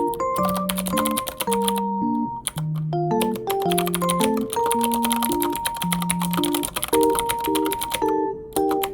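Rapid computer keyboard typing, a fast run of key clicks with a couple of short pauses, over gentle background music with a simple melody of held notes.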